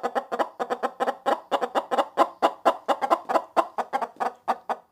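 Chicken clucking rapidly and continuously, about six short clucks a second.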